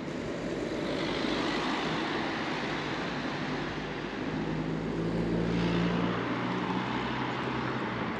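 Street traffic: a motor vehicle passing close by. The noise swells about a second in, and an engine hum holds steady for a few seconds in the second half.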